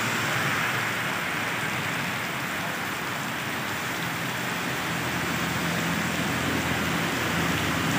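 Heavy rain pouring onto a wet road and puddled ground, a steady hiss. A low steady hum joins about halfway through.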